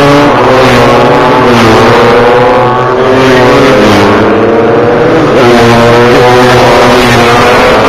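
Several racing motorcycle engines at full throttle, their notes overlapping. The pitch climbs and drops back again and again as the riders accelerate and shift up, and one bike sweeps close past about five and a half seconds in.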